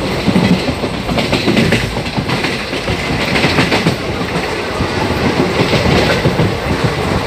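Passenger train running at speed, heard from on board: a steady rumble with wheels clattering over rail joints, the clatter bunching about a second in and again around three and a half seconds.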